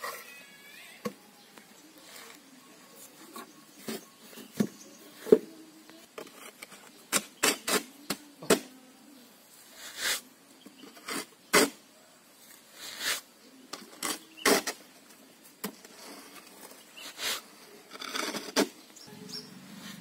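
Irregular sharp knocks and taps of a wooden concrete-block mould being lifted off fresh blocks and set down again, with wood knocking on wood and on wet concrete.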